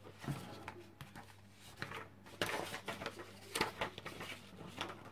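Objects being handled and shifted about on a work table: scattered rustles and a few light knocks, in no regular rhythm.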